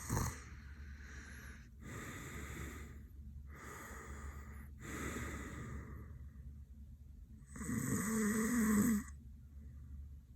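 A man passed out asleep with his mouth open, breathing noisily in and out several times, then giving one louder snore about eight seconds in that lasts about a second and a half.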